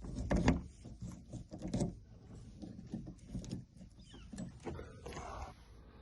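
Irregular small clicks and knocks of metal tools handling a Ford van's lock cylinder while a locksmith works on it, with a short rustle about five seconds in.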